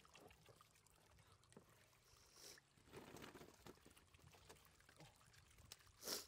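Faint water splashes and dribbling as live catfish slide out of a plastic basket into a shallow muddy puddle and wriggle, with a sharper, louder splash just before the end.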